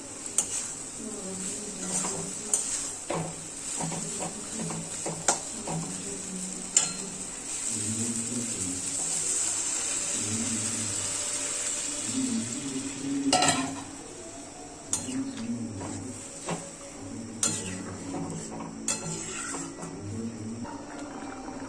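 Food sizzling in a pan while a spoon stirs and scrapes it, with scattered clinks of the spoon against the pan. One knock a little after halfway is louder than the rest.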